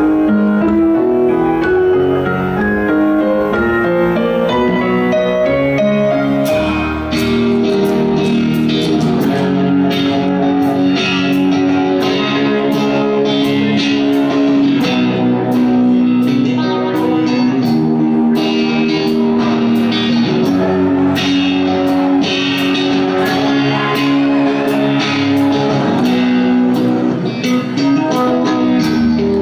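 Live rock band playing, recorded from the audience. Melodic notes are held at first, then about seven seconds in a deeper bass line and a steady, even beat come in and carry on.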